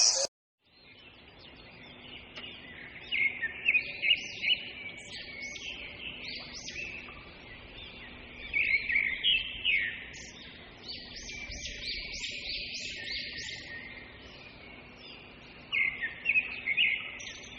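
A bird calling in quick runs of short chirps, each sweeping sharply upward, with pauses of a few seconds between runs, over a faint steady background.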